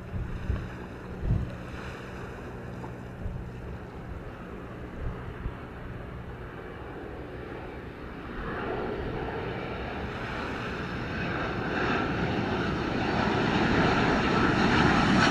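Boeing 787 jet engines on final approach, growing steadily louder from about halfway in as the airliner nears. In the first half the sound is faint, with wind buffeting the microphone.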